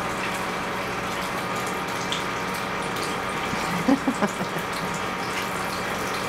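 Steady background hiss with a faint hum, even throughout, with a few short soft sounds about four seconds in.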